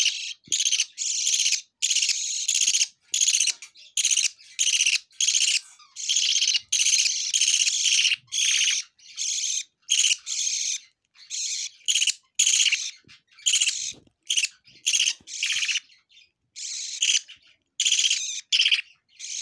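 Budgerigar chicks begging for food, a steady string of short, raspy chirps about twice a second, while being hand-fed formula from a spoon.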